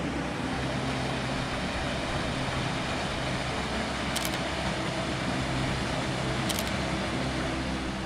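Rocky river and small waterfall, a steady rush of water.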